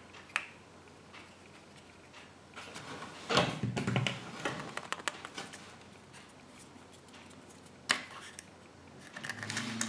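Small plastic clicks and taps of a Kinder Surprise egg's yellow plastic capsule being handled and pried open by hand. A brief burst of handling noise comes about three to four seconds in, and one sharp click near the end.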